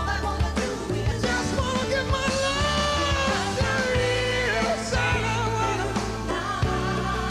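Live pop-rock band music with a male lead vocalist belting long held notes with wide vibrato over a steady band accompaniment.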